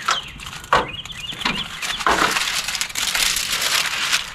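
Footsteps knocking on the rungs of a stepladder as a man climbs down, about four knocks in the first two seconds, followed by rustling. A bird chirps repeatedly in the background during the first second.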